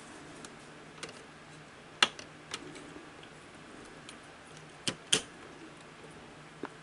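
Sharp plastic clicks and taps as a plastic part is pressed back into place on a Sony SL-100 Betamax deck's mechanism. There are about half a dozen, the loudest about two seconds in and a close pair about five seconds in.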